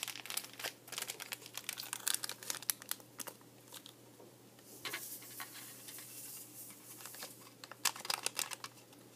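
A small plastic candy-powder packet from a Nerunerunerune kit crinkling as it is handled and opened, in several bursts of crackle, densest in the first few seconds.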